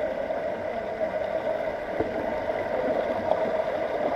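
Shallow rocky stream rushing steadily over stones and splashing around a person lying in the current.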